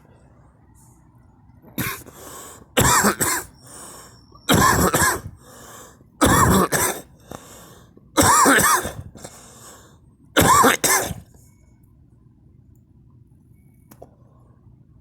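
A person coughing repeatedly: a small cough about two seconds in, then five loud coughs a second and a half to two seconds apart, the last about eleven seconds in.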